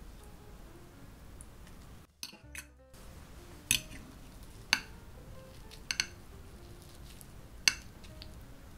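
Stainless knife and fork clinking and scraping against a ceramic plate while cutting through a crepe: five sharp clinks in the second half, two of them close together, the loudest near the end. Background music plays underneath.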